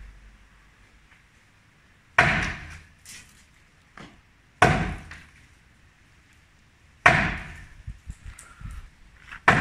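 Sledgehammer blows on a balcony slab being demolished: three heavy strikes about two and a half seconds apart, each ringing briefly as it fades, followed by lighter knocks and clatter after the last.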